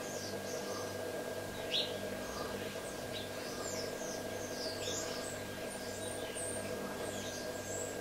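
Birds chirping in short, high, scattered notes, over a steady low hum. One sharper tick stands out about two seconds in.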